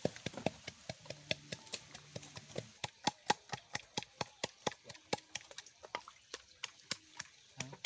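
Wooden pestle pounding in a mortar, a quick, even run of sharp knocks.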